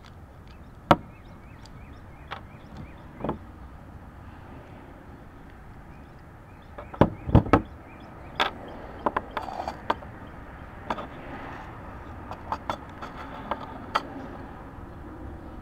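Metal clicks, taps and knocks of a Master Lock ProSeries 6127 padlock being taken apart by hand to get at its pin stack. There is one sharp knock about a second in, a cluster of heavier knocks about halfway, then a run of small clicks, all over steady wind noise.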